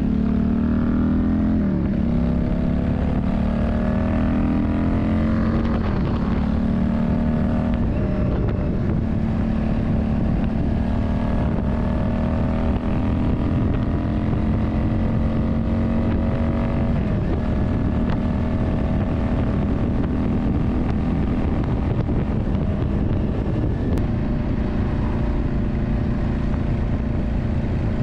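Yamaha Drag Star 400's air-cooled V-twin engine running under way. Its pitch climbs steadily, then drops sharply with each of four upshifts, then holds fairly steady at cruising speed.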